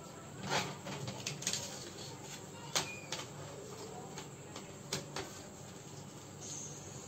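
Sheets of paper being folded and creased by hand against a wooden tabletop: short crisp rustles and crackles, the sharpest one a little under three seconds in, over a faint steady low hum.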